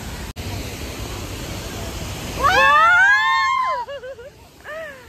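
Steady rush of a waterfall. About two and a half seconds in, a woman gives a loud, high-pitched squeal that rises and wavers for over a second, and a shorter cry follows near the end.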